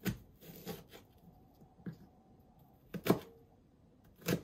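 Kitchen knife chopping through a burdock root onto a wooden cutting board: several sharp knocks a second or so apart, the loudest about three seconds in.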